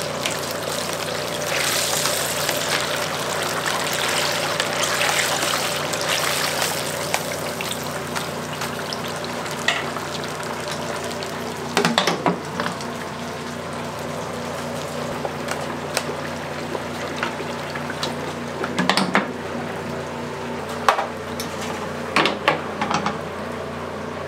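Hot oil bubbling and sizzling in a pressure fryer's well as a mesh strainer skims it, loudest in the first several seconds, over a steady low hum. Later a few sharp metal clanks as the stainless fryer lid is brought down and clamped shut.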